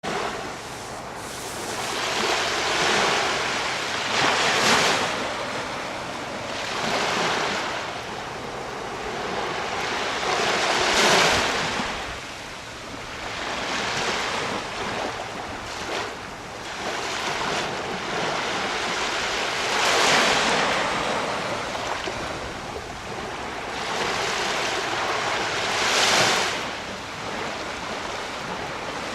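Sea waves breaking and washing up a beach, rising in a fresh surge every few seconds with a continuous rush of surf between, and some wind on the microphone.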